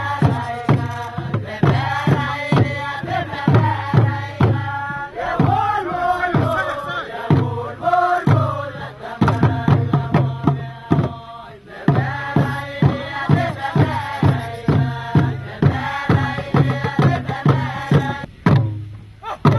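Voices chanting together in a traditional Tangara dance song over a fast, steady beat of kundu hand drums. The song breaks off briefly about twelve seconds in, and the chanting ends near the end while a few drum strikes carry on.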